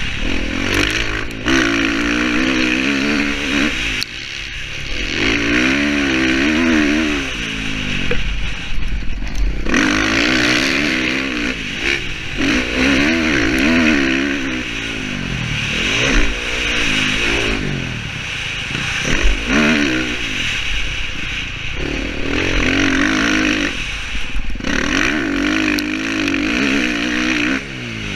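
Dirt bike engine revving up and backing off again and again as the rider accelerates down straights and shuts off for turns, heard from a helmet-mounted camera.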